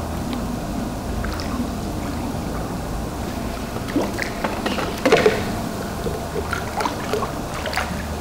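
A hooked fish thrashing and splashing at the water surface while being played on the line, with sharp splashes about four and five seconds in and a run of smaller splashes near the end.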